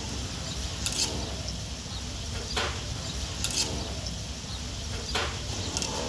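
Coconut worms deep-frying in a large wok of oil: a steady sizzle, with a wire strainer stirring through them and scraping against the wok several times.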